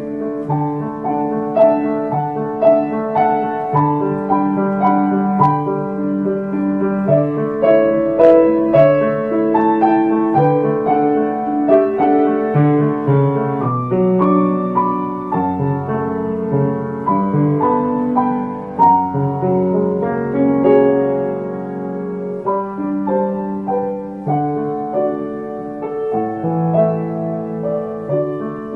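Solo grand piano playing a slow piece, with a continuous flow of notes and chords.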